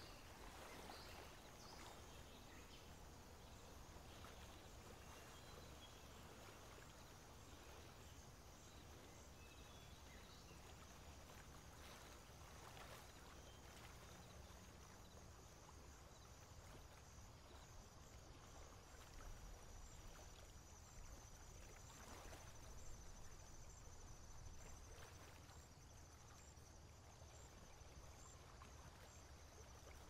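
Near silence: faint outdoor background hiss and low rumble, with a few faint short high sounds.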